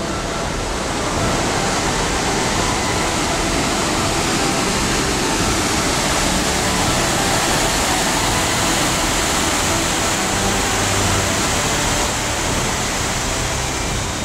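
Glacial meltwater torrent rushing over boulders: a steady, loud hiss of white water.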